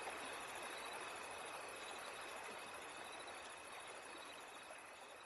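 Steady nature ambience of running water with a high, fast insect-like chirring and a thin steady high tone, slowly fading out.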